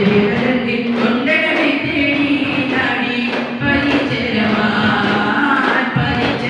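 Daff muttu: a group of boys singing together in unison, with sharp strikes of daf frame drums falling in a loose beat under the song.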